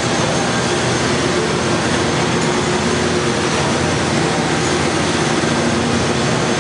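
Steady machinery noise in the engine room of the steamboat Natchez, its steam plant running to drive the stern paddlewheel: a constant loud noise with several steady hums through it.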